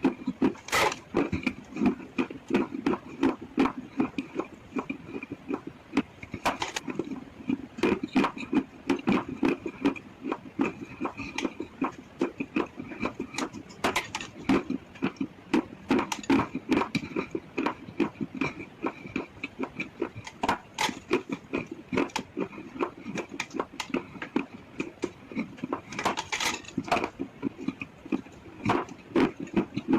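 Close-miked chewing of hard chalk and slate pencil: steady crunching and cracking several times a second, with wet mouth sounds between bites. A faint steady high tone runs underneath.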